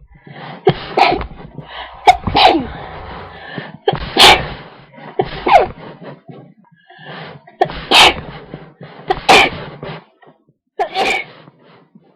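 A person's induced sneezing fit: about eight loud sneezes in quick succession, each with a breathy lead-in, spread unevenly through the stretch with a longer gap in the middle.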